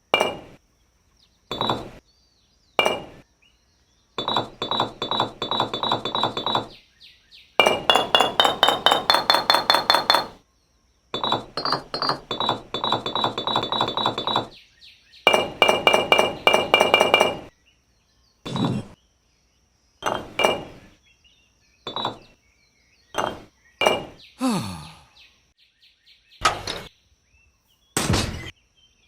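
Hard objects clinking and tapping: single sharp knocks between four runs of rapid ringing strikes, several a second, each run lasting two to three seconds. A short falling glide comes near the end.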